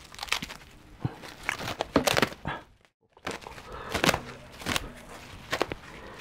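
A roll of cling film being handled and pulled at: irregular crinkling of plastic film with light knocks. The sound drops out to silence for a moment about three seconds in.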